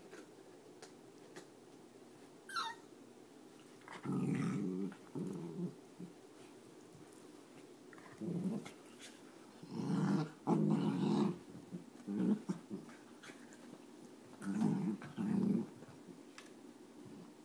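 Dachshunds growling in play, in short bursts that come in clusters of two or three.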